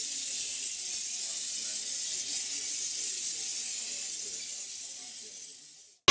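A steady hiss that fades out to silence near the end.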